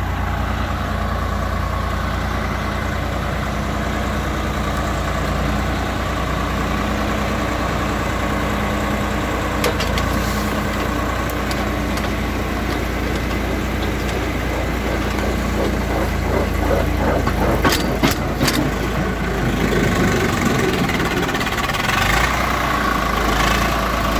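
Swaraj 855 FE tractor's diesel engine running steadily. A few sharp metallic clicks or knocks come through over it, once about ten seconds in and a short cluster about three-quarters of the way through.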